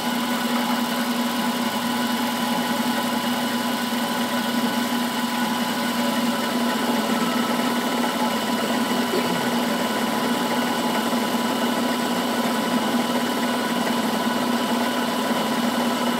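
Vertical milling machine running under power feed, its cutter taking a steady cut off the top of a metal part held in the vise. It gives a constant machine hum with a steady whine that holds unchanged throughout.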